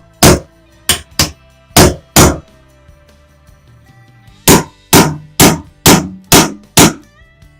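Hammer blows driving wedges into the gap between two floorboards. There are five sharp strikes, a pause of about two seconds, then six more at roughly two a second.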